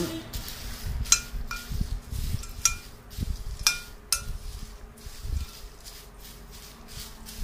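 Spoon stirring a dry mix of crisp fried papadam pieces, leaves, chillies and peanuts in a glass bowl: the mix shifts and rustles, with several sharp ringing clinks of the spoon against the glass, most of them in the first four seconds.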